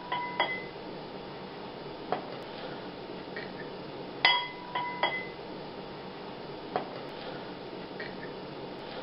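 Metal spoon clinking against a glass bowl while scooping powder, with short ringing clinks in two quick clusters, one at the very start and one about four seconds in, and a few softer single taps between them.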